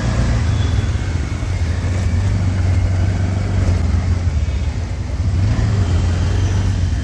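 Auto-rickshaw engine running and road noise, heard from inside the open passenger cabin: a steady low rumble.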